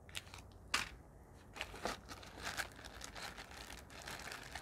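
Plastic-wrapped ration food packets rustling and crinkling as they are handled and set down, in a run of irregular short crackles with a sharper one near the start.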